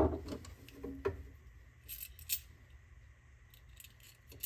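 Small clicks and light rubbing of wires and a small switch plate being handled as a power cord is fed through it, with a few sharp ticks in the first half and quieter handling after.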